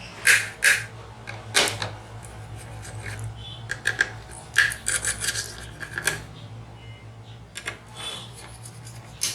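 Small metallic clicks, taps and scrapes in irregular bursts as a Dell N5010 laptop's CPU cooling assembly is unscrewed and worked off its motherboard, over a steady low hum.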